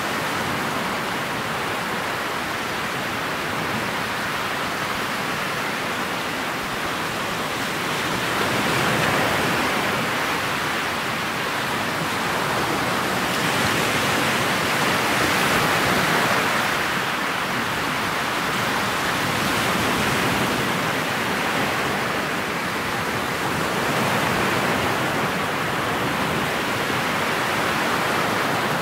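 Steady rush of wind on the microphone and water streaming along the hull of a motorboat under way on choppy lake water, swelling louder every few seconds.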